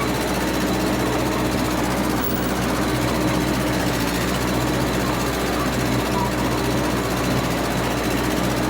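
Massey Ferguson 300 crawler dozer's engine running steadily at an even pitch.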